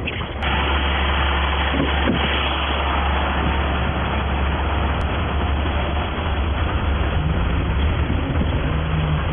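A motor vehicle running: a steady low engine drone under a dense hiss of road or wind noise, which swells sharply about half a second in and then holds steady.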